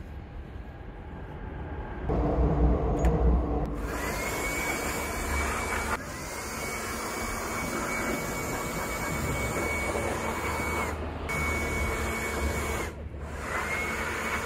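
A power tool's motor running in repeated bursts, as used on the wheels during a tyre change. A louder, lower machine hum comes about two seconds in. Then there are four runs of a high, steady whine, most of them rising in pitch as the motor spins up, each cutting off abruptly.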